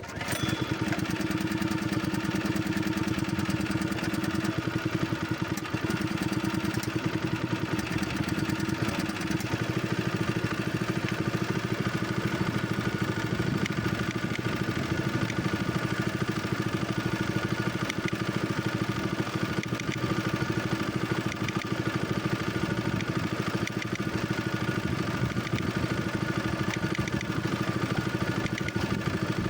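Boat engine running steadily at a constant speed.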